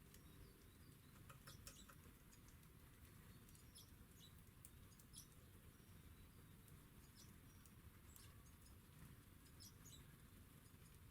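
Faint, short, high chirps and call notes of small garden birds, coming irregularly, over a low steady background rumble.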